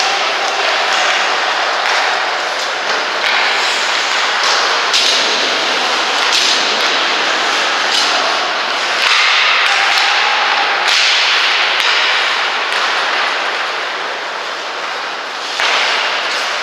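Ice hockey play heard at the rink: a steady scraping hiss of skates on the ice, broken by many sharp clacks and knocks of sticks, puck and boards.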